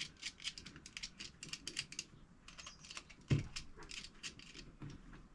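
Irregular small clicks and taps of hand work on a switch board while wires are fitted to the switches' terminals, several a second, with one duller knock a little past three seconds in.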